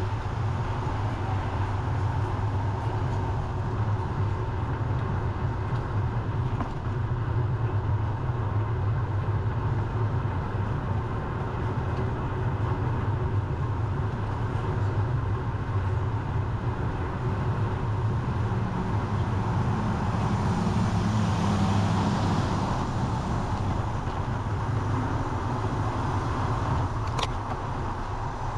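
Steady wind noise on the microphone and rolling noise of a bicycle ride, with road traffic around it; a car swells past about two-thirds of the way through.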